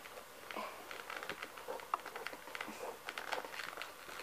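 Scattered light clicks and rustles of plastic toy parts and cardboard packaging being handled and pulled apart.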